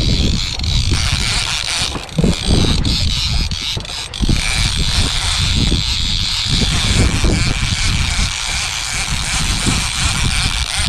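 A trolling reel being cranked in on a hooked fish, its mechanism clicking, over a constant low rushing noise.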